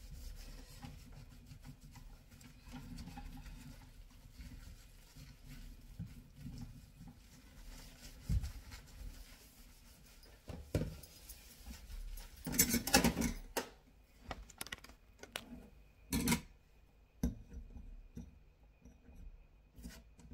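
A cloth wiping and scrubbing on a stainless-steel sink drainer, a low steady rubbing, with a few sharp knocks against the metal. A louder burst of handling noise comes about two-thirds of the way through.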